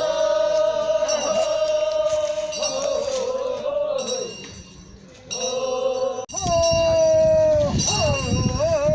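Korean funeral bier song (sangyeo sori): a male voice singing long, drawn-out mournful notes that waver at the ends. There is an abrupt cut about six seconds in, after which another long held note follows.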